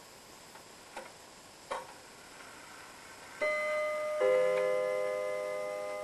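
Weight-driven wall clock striking as its hand is turned: a couple of faint clicks, then two chime strikes on different notes, a higher one then a lower one, both ringing on and slowly fading.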